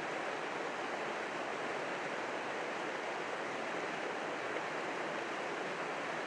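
Mountain creek rushing over rocks and into a pool, a steady, even rush of whitewater.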